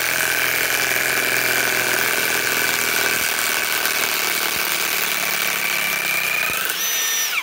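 Milwaukee M18 Fuel 2967-20 high-torque impact wrench running in reverse, backing a 6-inch lag screw out of a log. It runs steadily; near the end the pitch rises as the tool speeds up, then it stops suddenly.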